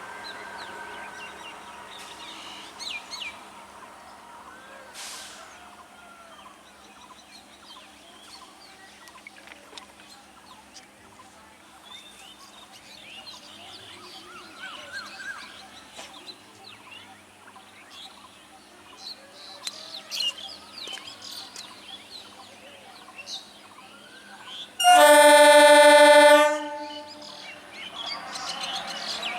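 Birds chirping over faint background noise, then near the end a single loud blast of a train's air horn lasting under two seconds, followed by a growing rush of noise.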